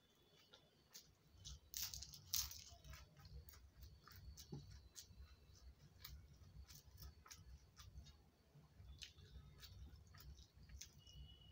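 Faint eating sounds: scattered small clicks and taps of fingers mixing rice on a steel plate, along with chewing, with a few louder clicks about two seconds in.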